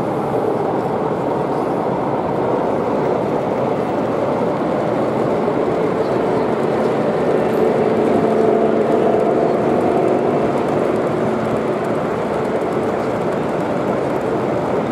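Model Class 55 Deltic diesel locomotive and its coaches running past on a model railway layout: a steady rolling rumble with a low drone that grows louder about halfway through.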